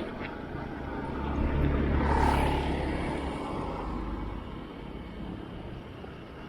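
A motor vehicle passing close by: its engine and tyre noise build to loudest about two seconds in, then fade away.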